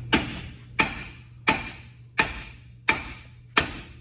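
Hammer striking a car's rear brake drum six times at an even pace, about one blow every 0.7 s, each blow ringing briefly like struck metal, to knock the drum loose from the hub.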